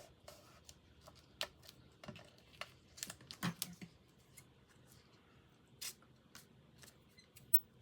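Paper and cardstock being handled and rustled, with scattered light clicks and taps, several close together about three seconds in.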